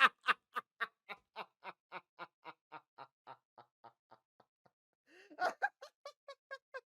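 Laughter: a long run of rhythmic "ha-ha" pulses, about four a second, fading away. Just after five seconds in, a second, higher-pitched run of laughter starts.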